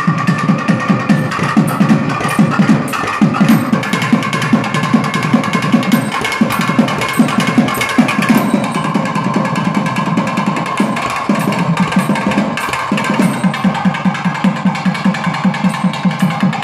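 Several thavil barrel drums played together in a fast, dense rhythm of stick and finger strokes on the drumheads, easing briefly about eleven seconds in before picking up again. A steady high tone runs behind the drumming.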